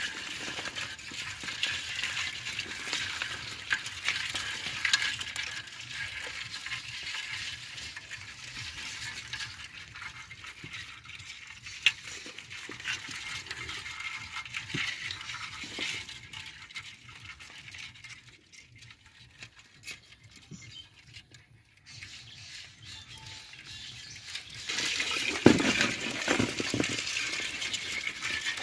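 A wet nylon ring net is handled and shaken over a bowl as the catch of crabs and small fish is freed into it, giving a steady scatter of small patters and clicks. It goes quieter for a few seconds in the middle and louder near the end, with a few low knocks.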